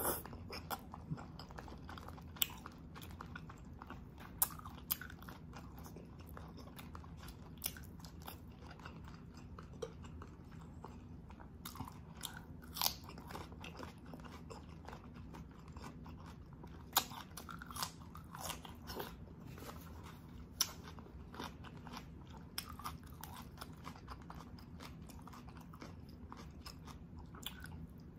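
Close-miked eating of braised beef oxtail: chewing and sucking the meat off the bone, with crunchy bites of raw cucumber, heard as scattered sharp clicks and crunches over a steady low hum.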